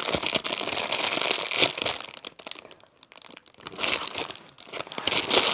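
Plastic squishy packaging crinkling as a unicorn squishy is handled and worked out of it, in two spells with a short pause about halfway through.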